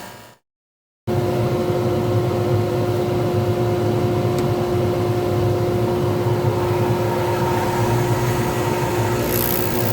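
After a brief dead silence, a lathe runs steadily with a fixed motor hum and whine. Near the end a scraping hiss joins in as a turning tool starts cutting the spinning resin pen blank.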